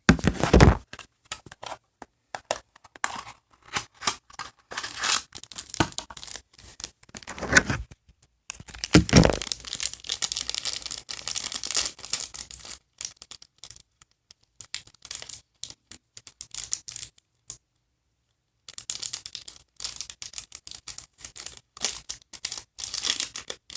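Small toy packaging being torn open and handled by hand: irregular tearing, crinkling and rustling of paper and plastic wrapping, with a brief pause about two-thirds of the way through.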